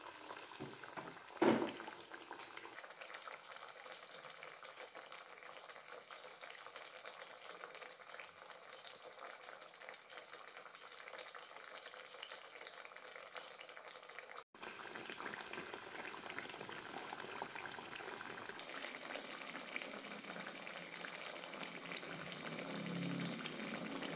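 Thekua (wheat-flour sweet cakes) deep-frying in hot oil in a steel kadhai: a steady fine crackle and bubbling. There is one sharp knock about a second and a half in. The sound cuts out for an instant about halfway and comes back a little louder.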